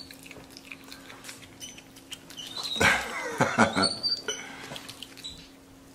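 Capuchin monkey giving a few short high squeaks and chirps, with some clicks, while eating, bunched together about three to four seconds in.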